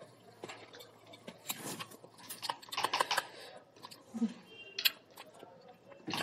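Close-up eating of cup noodles: irregular small clicks and crinkles of chopsticks against a paper noodle cup, with slurping and chewing. A brief low hum about four seconds in.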